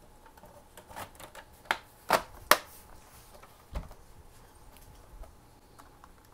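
Plastic back cover of a Lenovo all-in-one computer being pressed and fitted by hand: a run of sharp clicks, the loudest two about two and two-and-a-half seconds in, then a duller knock nearly four seconds in.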